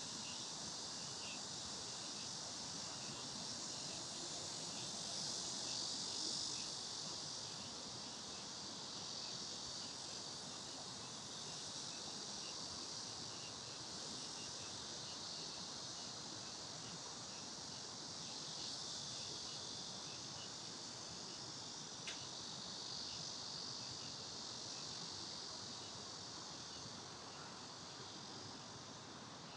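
A steady chorus of summer insects: a high, even buzz that swells a little about five seconds in, with faint rapid ticking beneath it. A single sharp click sounds a little after twenty seconds in.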